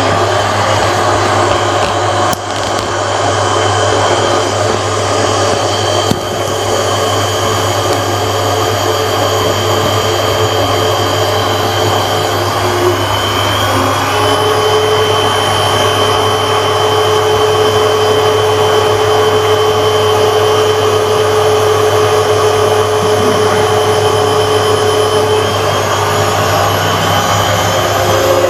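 Hotpoint WMA 9 washing machine's replacement motor running and driving the drum during a test run, a loud, steady whine over a low hum. About halfway through a further tone joins in and holds until near the end.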